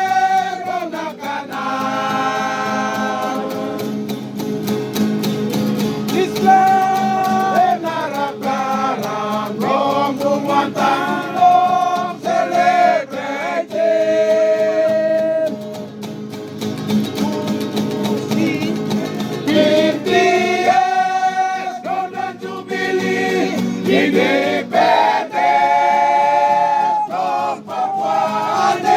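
Papua New Guinea string band playing: several voices singing together over strummed acoustic guitars.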